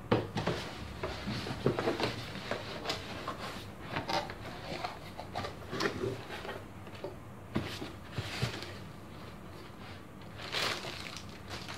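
Cardboard box flaps being folded open and plastic air-pillow packing being handled, with irregular rustling, crinkling and scraping and a louder burst of crinkling near the end.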